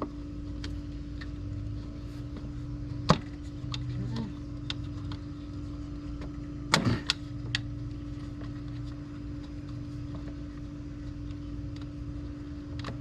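Sharp clicks and knocks of plastic and metal from handling a compact tractor's air cleaner housing, which fits closing up its cover after the filter check. There is one loud knock about three seconds in and a short cluster around seven seconds, over a steady low hum.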